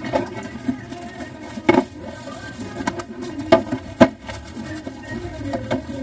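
Dishes being washed by hand in a stainless steel sink: rubbing and handling sounds, with a few sharp knocks of a cup or utensil against the steel, one a little before two seconds in and two close together around three and a half to four seconds in.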